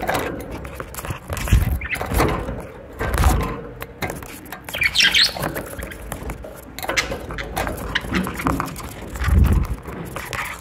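Caged budgerigars giving short, scattered chirps, one clearer chirp about halfway through, with a few dull thumps as the birds move in the cage.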